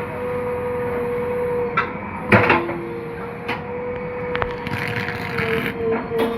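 JCB 3DX backhoe loader at work with a steady whine from its engine and hydraulics, broken by sharp clanks of metal and earth, the loudest about two and a half seconds in, and a hiss about five seconds in.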